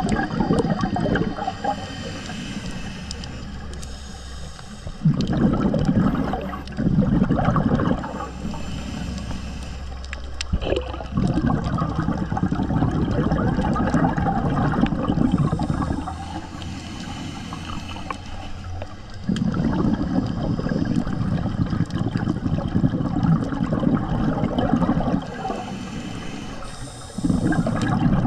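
Scuba diver breathing through a regulator underwater: a gurgling rush of exhaled bubbles lasting a few seconds each time, with quieter gaps for the inhales between. A faint low steady hum sits under it for about the first two-thirds.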